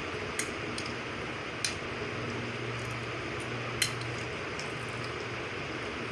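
Metal spoon clinking and scraping against a small steel bowl a few times, the loudest click near four seconds in, over a steady background hiss.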